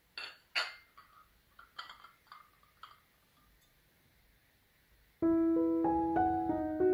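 A few light clinks of tableware in the first three seconds, then piano background music starts abruptly just over five seconds in and plays on.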